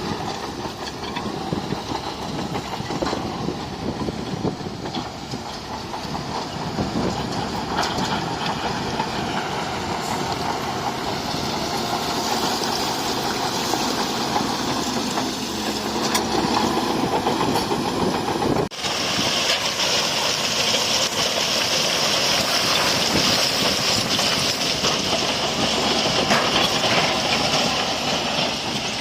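Bulldozer's diesel engine running steadily under load, with the clatter of steel tracks. A momentary dropout about two-thirds of the way through, after which a high hiss is stronger.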